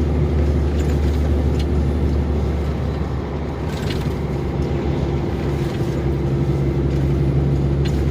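Methane-fuelled truck engine pulling at high revs up a steep grade, heard from inside the cab as a steady low drone that eases slightly for a moment about three seconds in.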